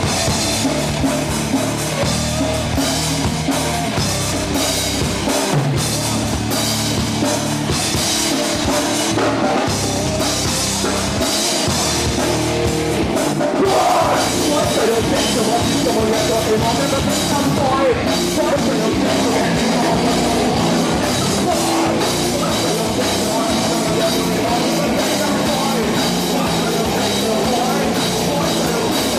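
Heavy rock band playing live, with electric guitars and a drum kit, loud and steady.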